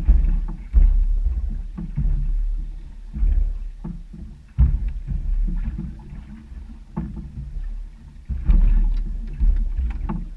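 Choppy waves slapping against the hull of a small fishing boat: an irregular run of heavy low thuds and splashes, about one a second.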